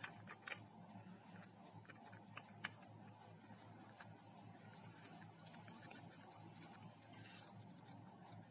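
Near silence over a low steady hum, with faint scattered clicks and light rubbing as small phone parts and a board connector lock are handled and fitted by hand; the sharpest click comes about two and a half seconds in.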